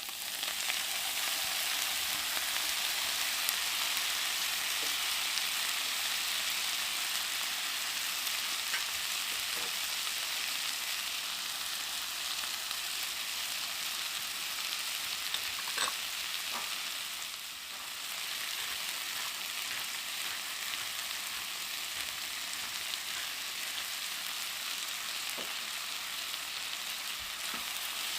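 Steady sizzling hiss that starts abruptly, with a few faint ticks scattered through it and a brief dip a little past the middle.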